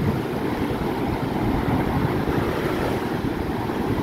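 Heavy storm surf at high tide: waves breaking and foamy water washing up the beach in a continuous rushing noise, the swell raised by Typhoon Jenny.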